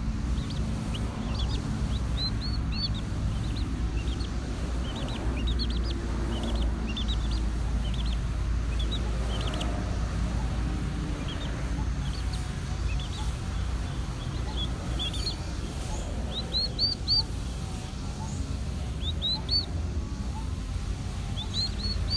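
Young chicks peeping: short, high chirps scattered throughout, some in quick runs of three or four, over a steady low rumble.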